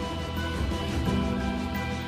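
Background music: held instrumental notes over a bass line that changes note about a second in.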